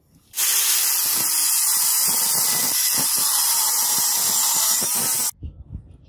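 Angle grinder cutting through a steel bar: a loud, even, hissing screech of the disc in the metal that cuts in suddenly and stops abruptly about five seconds later.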